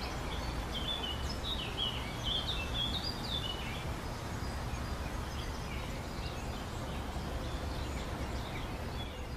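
Steady background noise with a small bird chirping a quick run of short calls that step up and down in pitch over the first three and a half seconds, then only a few faint chirps.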